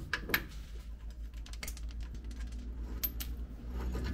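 A few sharp, irregularly spaced metallic clicks and clinks of a hand tool and steel parts knocking together, two of them close together near the end, during the removal of a tractor's PTO bearing bracket.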